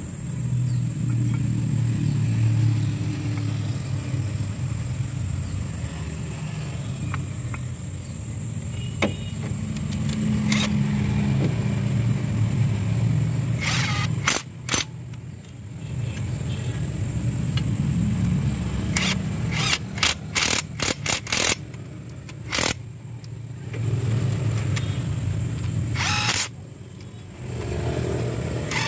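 Cordless impact wrench run in a series of short bursts on a bracket bolt, over a steady low mechanical drone.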